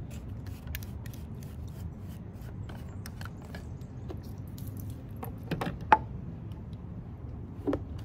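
Plastic clicks and scrapes as the clear canister is unscrewed from a Salty Captain hose spray nozzle and handled. Sharper knocks come about five and a half to six seconds in and again near the end, over a low steady rumble.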